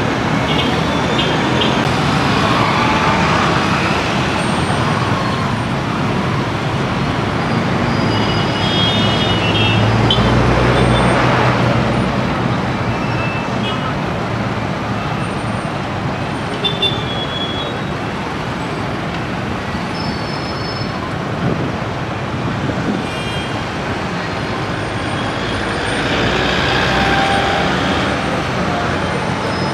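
Busy city street traffic: motorcycles, minibuses and cars passing with engines running, over a steady road noise. A heavier engine rumble swells as a vehicle passes close about ten seconds in.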